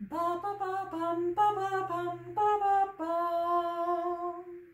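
A woman singing a tune unaccompanied on neutral syllables such as "ba" and "bum", stepping through short notes, then holding one long note near the end before stopping.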